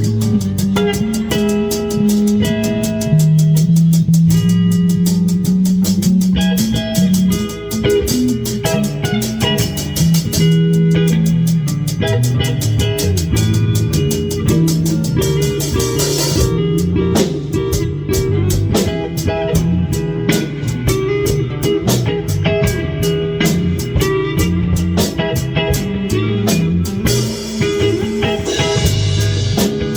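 Live band playing an instrumental rock jam: drum kit with a steady beat and continual cymbal hits, electric guitar, bass guitar and synth.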